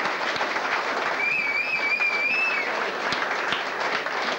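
Crowd applauding, with one long high whistle through it lasting about a second and a half, starting about a second in.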